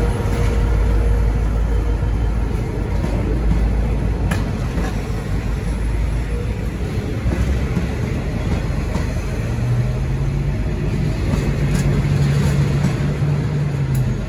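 N class diesel-electric locomotive's engine rumbling steadily as the train pulls out, just after its horn stops. A low humming note comes in about ten seconds in and steps up a little in pitch about two seconds later.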